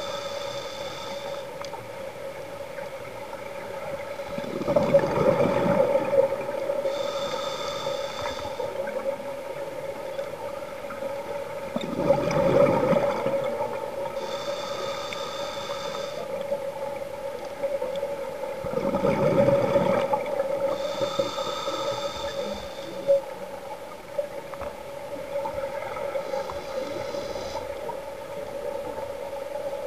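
Scuba diver breathing on a regulator, heard underwater: a hiss on each inhale and a rush of exhaust bubbles on each exhale, about every seven seconds. Three loud bubbling exhales come at intervals. A steady hum runs underneath.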